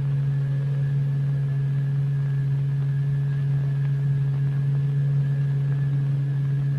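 A steady low electronic tone held at one pitch: the audio frequency driving a vibrating layer of fluid into a regular lattice of standing-wave ripples.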